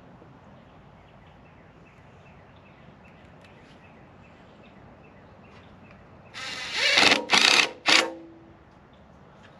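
Cordless drill-driver driving a Phillips wood screw through an aluminium sign into a wooden post: one longer run followed by two short bursts as the screw seats, starting about six seconds in.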